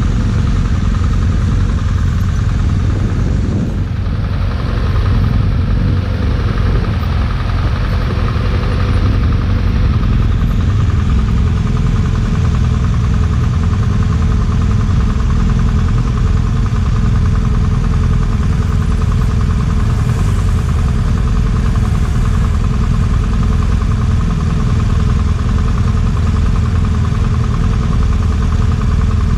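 BMW GS adventure motorcycle engine running steadily, with a heavy low rumble.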